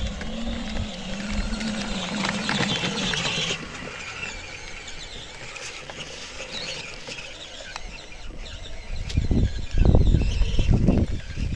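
Power Wheels toy ATV's electric drive motor and gearbox whining steadily as it rolls over dirt, stopping about three and a half seconds in. Loud low rumbling near the end.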